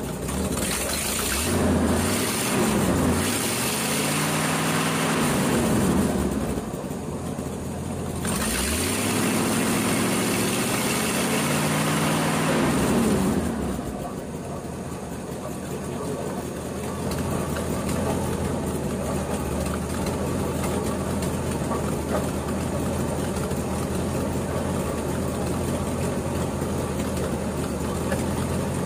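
Ford F-350 truck engine, cold and just tuned up, revved up and held twice for several seconds each, then dropping back to a steady idle about fourteen seconds in as it warms up. The freshly rebuilt water pump is noisy, which the owner says sounds like it's got rocks in it.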